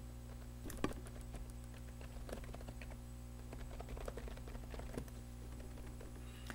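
Typing on a computer keyboard: light key clicks at an irregular pace, over a faint steady low hum.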